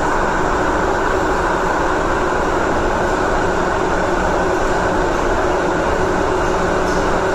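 MTR M-train heard from inside the car, running through a tunnel: a steady rumble of wheels on rail and running gear, with no change in pace.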